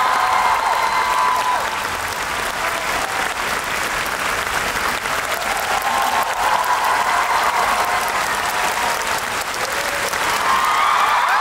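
Large concert audience applauding, with cheering voices rising and falling above the clapping, louder near the start and again near the end.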